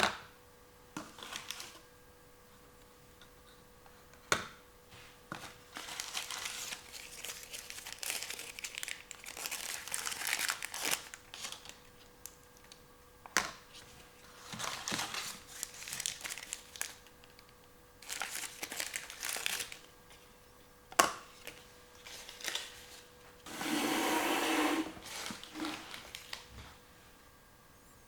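Plastic packaging crinkling and rustling in repeated bursts as toy pieces are handled and unwrapped, with several sharp plastic clicks and a louder burst of crinkling about 24 seconds in.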